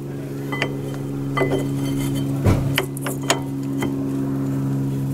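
Light metallic clinks and taps of a brake pad being test-fitted into a front disc brake caliper, about six separate knocks. A steady low hum runs underneath and grows a little louder.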